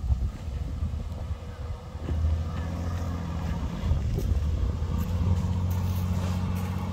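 Diesel engines of earthmoving machinery running: a rough low rumble that settles into a steady low engine hum about two seconds in.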